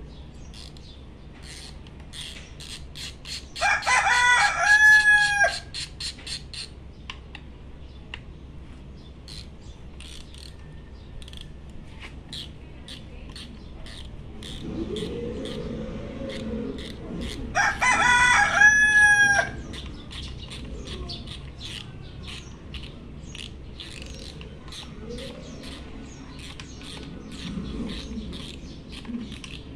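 A rooster crows twice, each crow lasting about two seconds, once near the start and again past the middle. Between and around the crows come runs of quick light clicks from a socket wrench being turned in a motorcycle's handlebar brake master cylinder.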